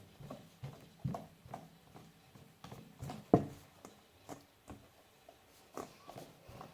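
Fluffy slime being mixed and worked: scattered short, irregular squishes and clicks, the sharpest about three and a half seconds in.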